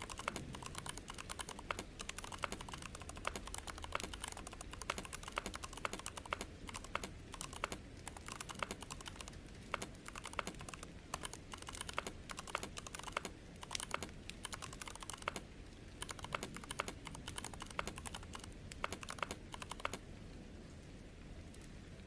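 Fast continuous typing on a computer keyboard, many keystrokes a second, stopping abruptly about twenty seconds in and leaving a low steady hum.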